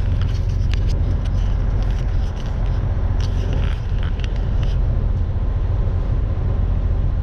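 Tractor-trailer's diesel engine running with a steady low rumble, heard from inside the cab while creeping along in slow traffic, with a few light clicks and rattles.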